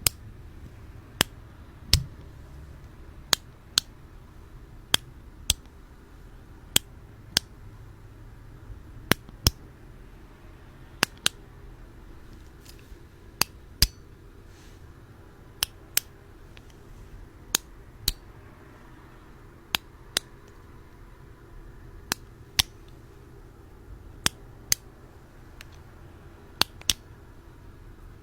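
Sharp clicks, mostly in pairs about half a second apart, repeating every two seconds or so.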